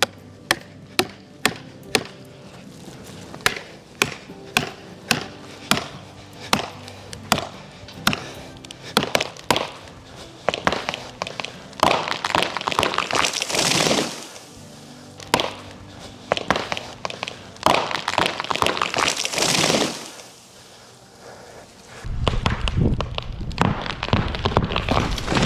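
Cinematic trailer music with a sustained low drone. Sharp knocks come about twice a second through the first half, and louder noisy swells follow in the second half, with a deep heavy passage near the end.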